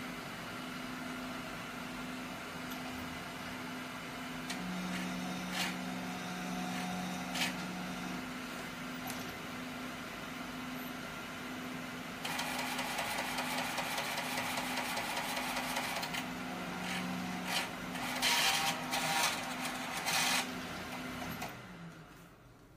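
Large-format inkjet printer with an Epson DX5/DX7 printhead running, likely printing a nozzle test strip: a steady mechanical hum with clicks. It gets louder about halfway through, rattles more loudly shortly before the end, then stops.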